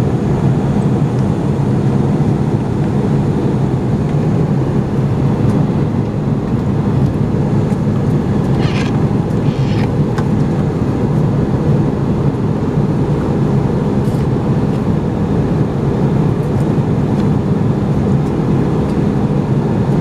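Steady cabin drone of an Airbus A320neo in cruise, engine and airflow noise heard inside the passenger cabin. About nine seconds in come two brief rustles as the safety card is handled in the seat-back pocket.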